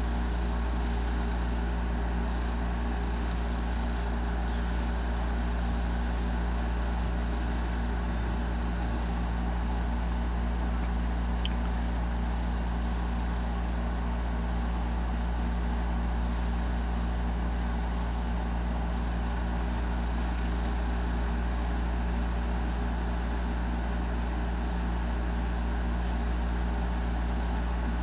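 A steady low hum over an even background hiss, with one small tick about eleven and a half seconds in.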